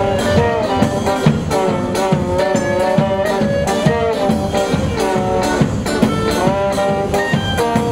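Street band playing upbeat jazzy music: a brass horn carries the melody over double bass, guitar and a steady drum beat.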